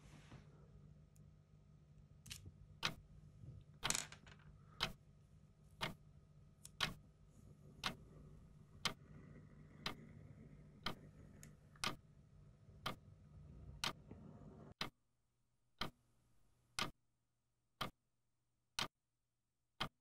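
A clock ticking steadily, about once a second, over a low steady hum. The hum cuts out suddenly about fifteen seconds in, leaving only the ticks.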